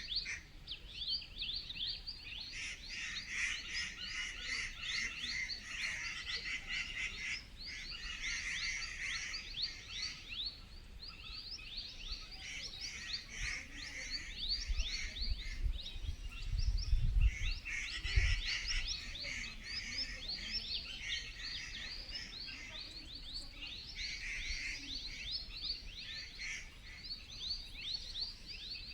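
Dense forest chorus of quick, high downward-sweeping chirps, many a second, keeping up without a break. About halfway through, a few low rumbling thumps hit the microphone.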